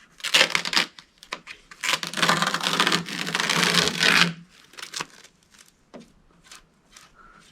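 Packing material being handled and rubbed: a few short scrapes, then one long scrape lasting about two seconds, then light clicks.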